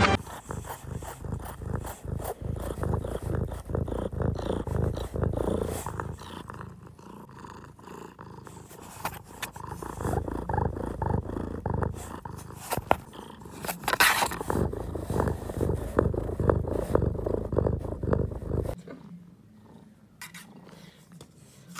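Domestic cat purring loudly close to the microphone: a low rumble of rapid pulses that stops shortly before the end, leaving only a few faint taps.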